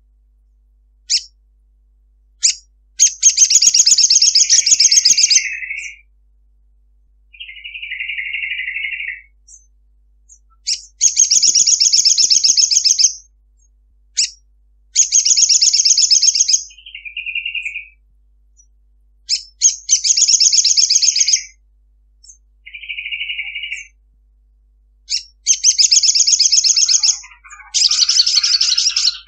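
Olive-backed sunbird giving six long, rapid chattering trills of about two seconds each, every one led by one or two sharp chip notes. Shorter, lower buzzy notes come in some of the gaps.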